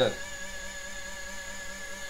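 Small high-speed permanent-magnet motor running steadily, giving a constant whine made of several held tones.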